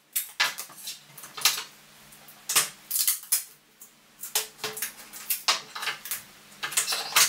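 Two wooden sticks and a knitting needle being handled and taped together: irregular clicks and knocks, with short rasps of tape pulled off the roll.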